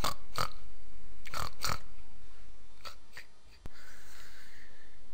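Short snorts, the sound of a cartoon pig: two quick pairs in the first two seconds, then two fainter ones. The background fades and cuts off about three and a half seconds in, leaving a faint hiss.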